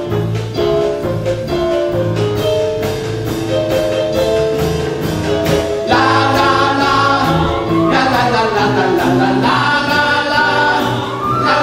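Live theatre band (keyboard, double bass and drums) playing an upbeat show tune over a steady beat, with singing voices. The music swells about six seconds in, with sliding, wavering high notes after that.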